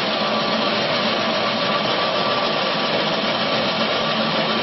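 Horizontal ring-die feed pellet mill running steadily while producing pellets, a continuous mechanical noise with a faint steady whine in it.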